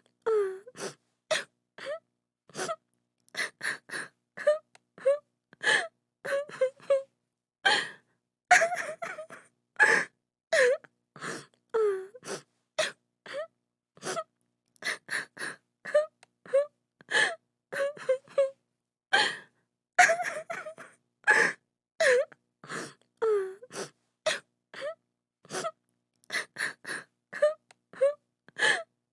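A woman crying: short sobbing gasps and wailing cries, about one a second, broken by brief silences. Some of the cries fall in pitch.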